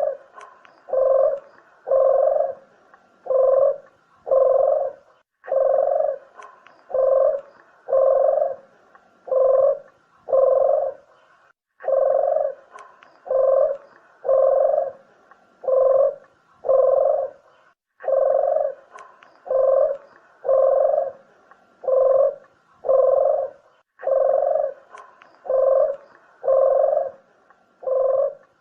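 Puter dove (collared dove) cooing: phrases of about five short, low coos, each phrase repeated about every six seconds. It is a recorded call played to lure doves for hunting or trapping.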